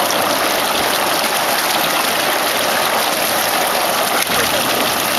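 Plaster mixer running with a steady, even rushing hiss while gypsum plaster is tipped in slowly.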